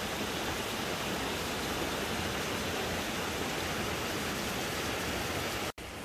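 Steady rush of creek water tumbling over rocks, an even hiss with no pauses. It cuts out for an instant near the end.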